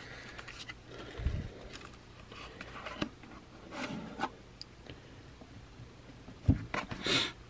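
Faint rustling and scraping of a cardboard trading-card box and cards being handled as they are taken out, with a soft thump near the end.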